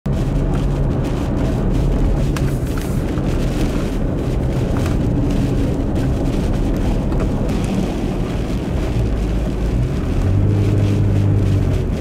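Vehicle driving through a blizzard, heard from inside: a loud steady drone of engine, tyres and wind blowing against the car, with a deeper hum growing stronger about ten seconds in.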